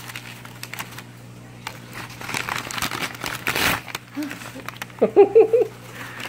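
Packing paper crinkling and rustling as hands pull it open, loudest about three and a half seconds in. A short, wavering voice sound follows about five seconds in and is the loudest moment.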